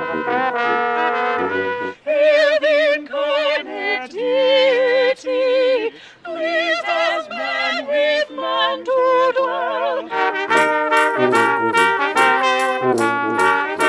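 Brass ensemble playing a Christmas carol in held chords and a melody with vibrato. About ten seconds in, a crisp regular beat of about two and a half strokes a second joins.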